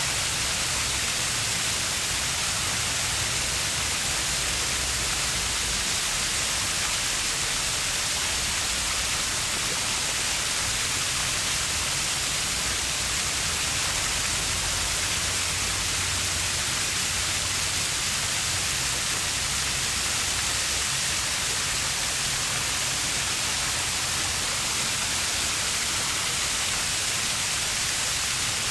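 River water flowing in a shallow stream, a steady even hiss without breaks.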